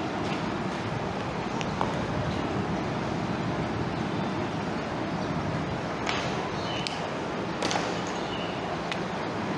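Marker writing on a whiteboard, a few short scratches and squeaks, mostly in the second half. Steady background noise runs under them.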